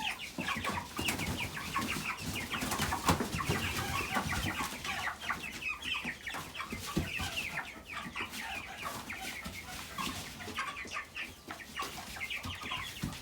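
A flock of chickens calling continuously in many short, overlapping clucks, with scattered light knocks and rustles.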